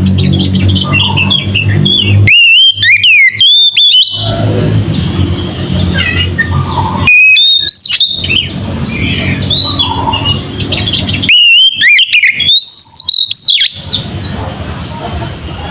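Oriental magpie-robin (kacer) singing loudly in runs of clear, sharply rising and falling whistled notes, three bouts a few seconds apart. Between the bouts, quieter chirps over a low steady hum.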